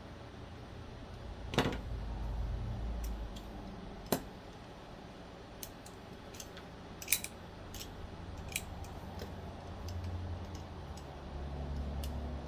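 Small sharp metal clicks and taps, about a dozen scattered through, from a folding knife being handled and worked on by hand, with low rumbling handling noise between them.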